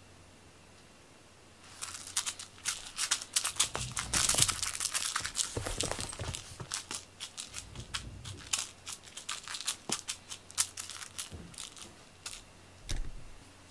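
A cat dashing and scrabbling over a quilted fleece rug after a toy mouse on a string: a busy run of crinkly rustles and scratchy clicks that starts about two seconds in, is loudest around four to five seconds, then thins out into scattered clicks near the end.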